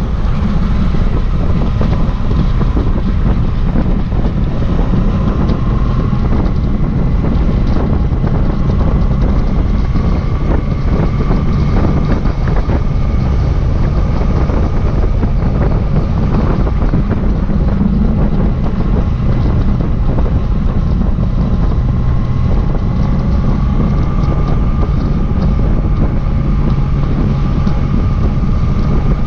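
Yamaha Tracer motorcycle engine running under way, its note rising and falling gently with the throttle, under heavy wind noise on the microphone.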